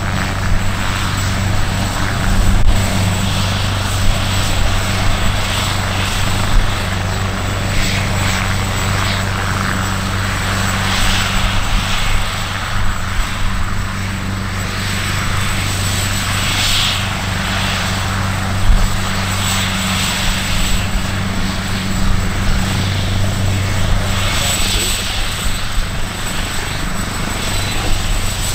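AgustaWestland AW139 twin-turboshaft helicopter running steadily: a constant low rotor and engine hum with a thin high turbine whine above it, and a rushing noise that swells every few seconds.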